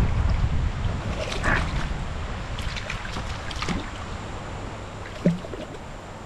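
Shallow stream water splashing and lapping around hands in the water as a small trout is released, with a few short splashes. Underneath is a low rumble of wind on the microphone that eases off after the first second or so.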